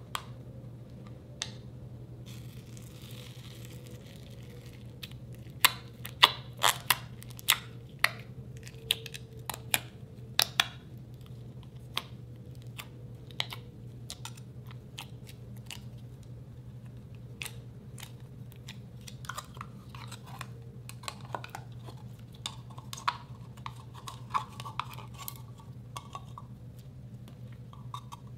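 Slime being pressed and squished by fingers in a plastic jar, giving sharp wet clicks and pops. A dense run of loud pops comes between about six and eleven seconds in, then softer scattered ones, over a low steady hum.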